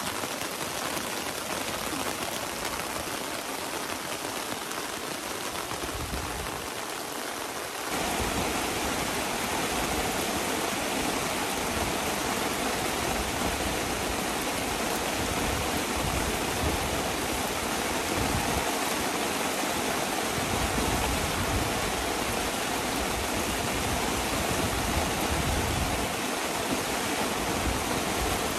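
Heavy rain falling steadily, a dense even hiss; about eight seconds in it becomes louder and fuller.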